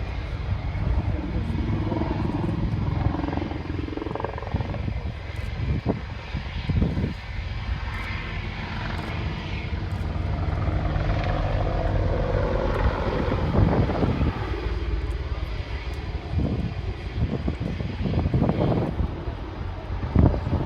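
Apache attack helicopter flying past, its twin turboshaft engines and rotor making a steady loud rumble with rapid blade pulsing. A few short louder thumps stand out over it.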